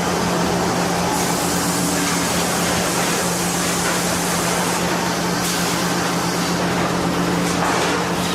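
Sawmill machinery running: a steady machine hum with one constant low tone under an even hiss.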